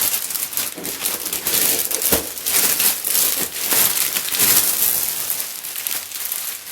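Packaging crinkling and rustling as it is handled and pulled open, a dense run of small crackles.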